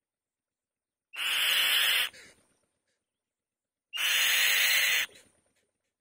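Two harsh, rasping screeches of a black-shouldered kite, each about a second long and about three seconds apart, each breaking off sharply with a short fading tail.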